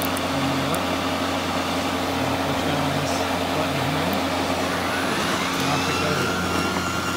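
EGO LM2135SP dual-blade battery mower running steadily, a whir like a loud fan. About five seconds in, a whine rises and then holds as the self-propelled drive is switched on.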